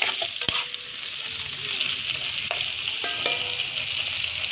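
Small birds (sparrows) frying in oil in a pan, a steady sizzle, with a sharp click about half a second in and two short clinks later on.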